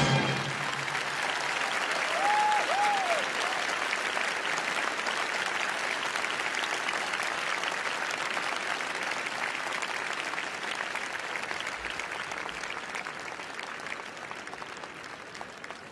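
Large arena crowd applauding, with a whistle that rises and falls twice about two seconds in; the applause slowly fades toward the end.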